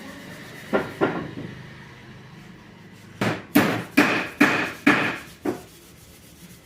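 Hammer striking wood: two knocks about a second in, then a quick run of about seven blows at roughly three a second.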